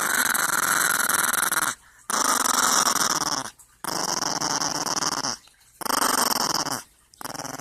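A dog growling in long drawn-out growls, about five in a row with a short pause for breath between each. It is a grouchy, grumbling growl.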